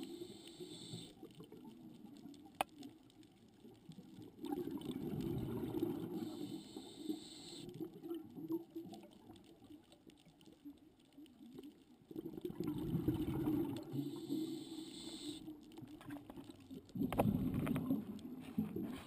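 A scuba diver breathing through a regulator underwater: three bursts of exhaled bubbles, each two to three seconds long and about six seconds apart, with a faint hiss alongside.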